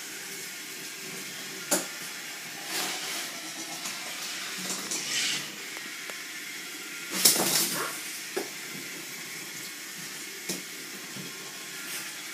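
A steady hiss with several short knocks and clatters from plastic toy train track and a toy train being handled on a tile floor; the loudest clatter comes a little past the middle.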